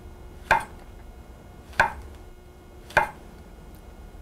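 A large kitchen knife slicing white mushrooms on a wooden cutting board: three separate cuts a little over a second apart, each ending in a sharp tap of the blade on the board.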